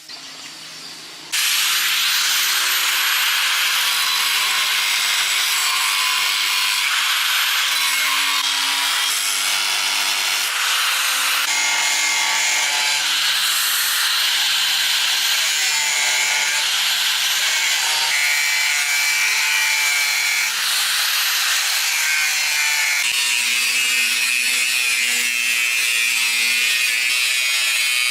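A handheld power tool starts about a second in and runs steadily on a job, giving a loud, harsh, hissing rasp whose tone shifts every few seconds.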